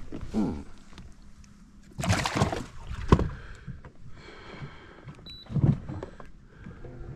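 Knocks and handling noises in a small fishing boat: a rush of noise about two seconds in, a sharp knock a second later, and a dull bump near the end.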